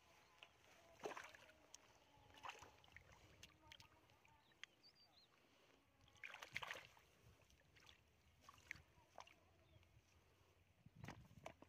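Faint, scattered splashes and squelches of hands groping through shallow muddy water and grass roots, a few short sloshes a couple of seconds apart.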